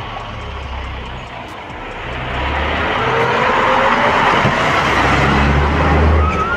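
Isuzu school bus driving past close by, its diesel engine and tyres growing louder as it approaches and passes.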